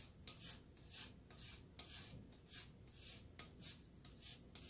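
Lime rind being grated on a long, fine rasp grater: faint, repeated scraping strokes, about two a second.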